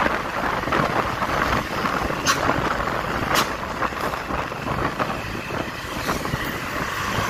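Road traffic noise from close behind a moving coach, a dense rushing haze with wind buffeting the microphone. Two sharp clicks stand out, about two and three and a half seconds in.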